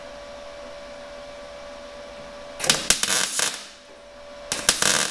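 R-Tech MIG 180 welder laying two short bursts of crackling MIG weld, the first about two and a half seconds in and lasting about a second, the second shorter one near the end. These are plug welds through drilled spot-weld holes, fixing a sheet-metal rust-repair panel to a car chassis. Before them there is only a faint steady hum.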